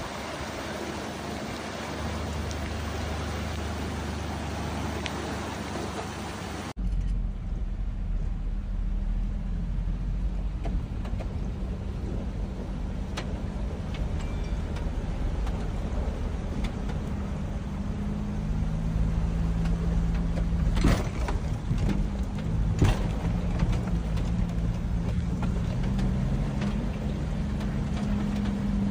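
Heavy rain and rushing floodwater make a steady hiss for about the first seven seconds. After an abrupt change comes a low rumble with a hum that steps up and down in pitch, and a couple of sharp knocks later on.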